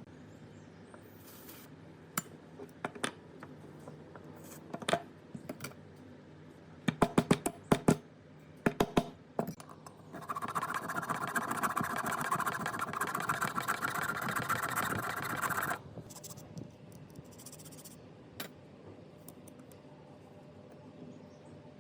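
Small parts being worked on by hand: scattered sharp clicks and taps, with a quick run of loud knocks about seven seconds in. Then a steady scraping noise runs for about five seconds and cuts off suddenly, followed by a few more clicks.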